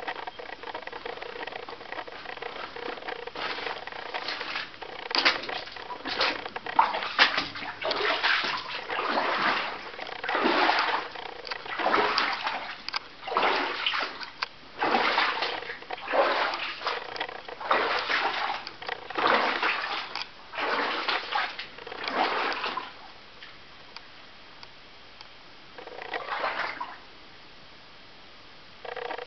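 Footsteps splashing and sloshing through shallow water on a mine tunnel floor, about one step a second; the steps stop near the end, with one more splash after a pause.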